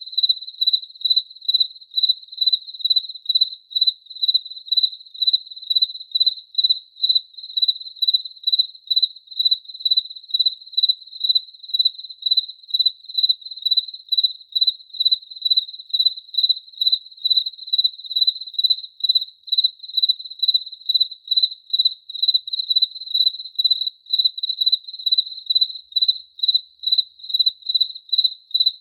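A cricket chirping steadily: one high note repeated in an even rhythm of about two chirps a second.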